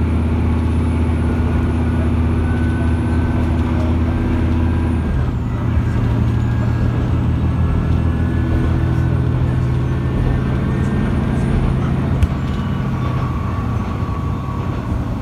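Matsuura Railway MR-600 diesel railcar under way, heard from inside the passenger cabin: a steady low engine drone whose note shifts about five seconds in. A single sharp knock comes about twelve seconds in.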